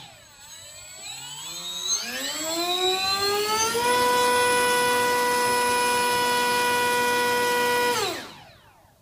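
RC plane's battery-powered electric motor and propeller throttled up to full power: a whine that climbs in pitch over about three seconds, holds steady for about four seconds, then winds down quickly near the end.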